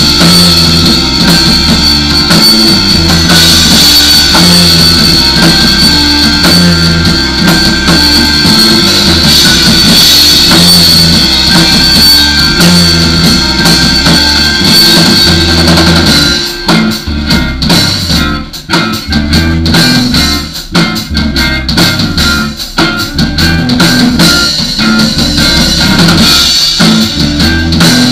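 Instrumental rock played live on electric guitars and a drum kit, loud and dense. A little past halfway the steady full-band playing breaks into choppy, stop-start hits with short gaps between them.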